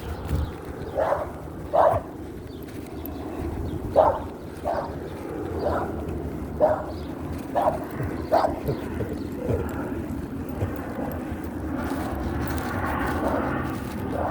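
Dogs barking, about nine short barks at uneven intervals over the first ten seconds, over a steady background rumble.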